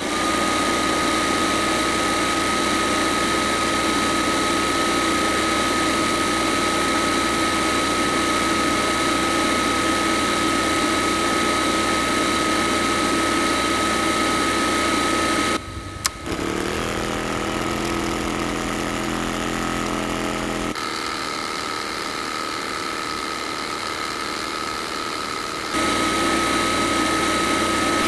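Small DC motor of a model borewell drilling rig running with a steady high whine as it turns the drill pipe. A little past halfway the sound breaks off briefly and changes abruptly twice, then the same whine returns near the end.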